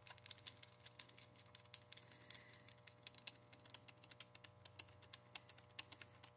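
Faint, irregular small clicks, several a second, from a screwdriver turning a pistol grip screw into an AR-style lower receiver.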